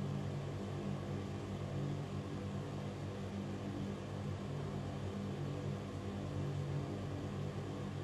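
Ventilation fan running steadily: an even rush of moving air over a constant low hum.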